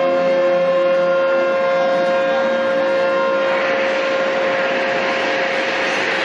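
A horn sounding one long steady note. About three and a half seconds in, a loud rushing noise joins it.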